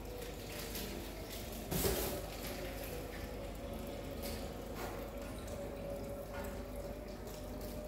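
Faint clicks and knocks of hands handling a flat-screen TV and its cables, the loudest about two seconds in, with a faint steady hum underneath.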